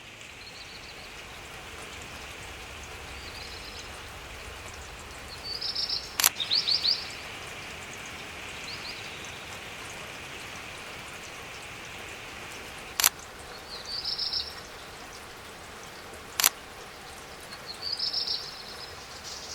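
A songbird singing a short phrase over and over, a warble followed by a quick falling run of notes, about every six or seven seconds, over a steady outdoor hiss. Three sharp clicks cut in along the way.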